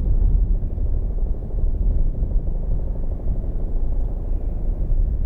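Bell 212 helicopter with its twin turboshaft engines and two-bladed main rotor running, heard as a loud, steady low rumble.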